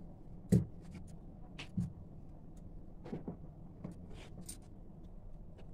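Rolling pin rolling out puri dough on a round board, with a few sharp knocks and clicks, the loudest about half a second in.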